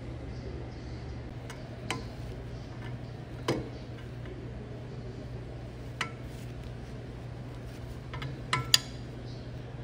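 Steel open-end wrench clicking and clinking against the heat exchanger's tube fittings as they are tightened: single sharp metallic clicks about 2, 3.5 and 6 s in, then a quick run of three near the end, the last the loudest, over a steady low hum.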